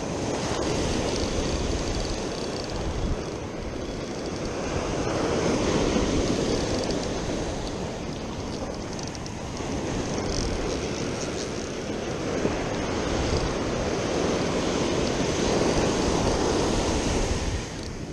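Ocean surf breaking and washing up the beach, a rushing noise that swells and eases every few seconds, with wind on the microphone.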